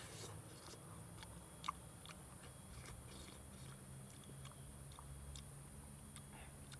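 A person chewing and biting food, soft wet crunches and clicks with one sharper click a little under two seconds in.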